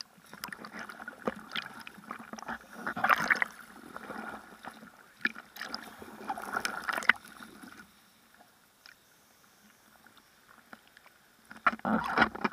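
Seawater splashing and lapping against a bodyboard and the 360° camera mounted on it, in irregular bursts. It goes nearly quiet about eight seconds in, then splashes again near the end.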